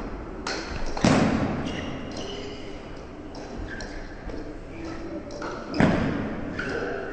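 Table tennis rally: a celluloid ball clicking off paddles and the table, echoing in a large hall. Two louder thumps, one about a second in and one near the end, ring on in the room.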